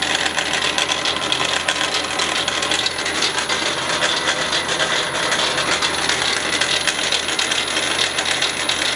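Milling machine running, a drill bit cutting into a steel belt-pulley hub, with dense metallic clicking from the cut and the chips and a steady thin high whine underneath.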